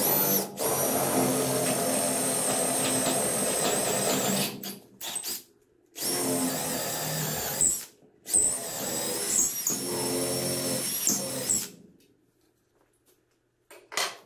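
Cordless drill boring holes through a 1-inch-thick wooden workbench top. It runs at a steady whine in three main runs, with a few short spurts between them, and stops about twelve seconds in.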